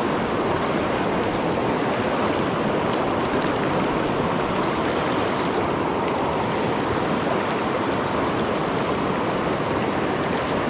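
River water rushing steadily, an even, unbroken sound of flowing current.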